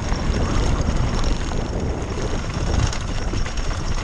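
Downhill e-bike running fast over a loose gravel track: a steady rush of wind buffeting the mounted camera's microphone, over the crunch and rattle of the tyres on stones.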